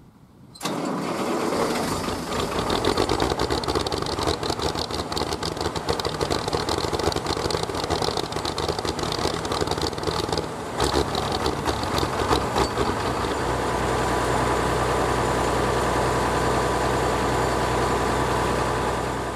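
Old tractor engine starting and running, uneven at first, then settling into a steady idle about two-thirds of the way through.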